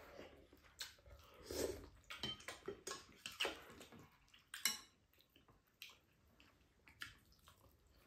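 Two people eating at a table: spoons and chopsticks clicking lightly against ceramic bowls and a pan, with soft chewing, and one sharper clink about four and a half seconds in.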